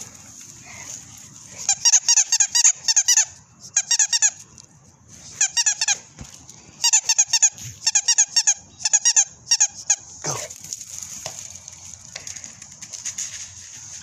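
Rubber squeaky toy ball squeezed again and again in six quick bursts of high squeaks, several squeaks a second, then a single thump near the end.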